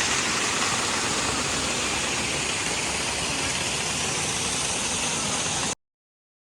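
Waterfall rushing, a steady even wash of falling water that cuts off suddenly near the end.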